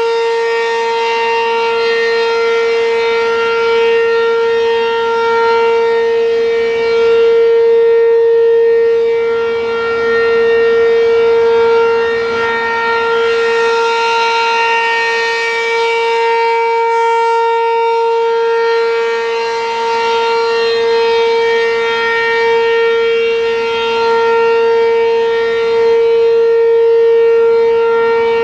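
American Signal RM-127 Penetrator single-tone siren sounding its steady alert tone: one held pitch, very loud, swelling and fading about every six to seven seconds as the rotating horn sweeps past.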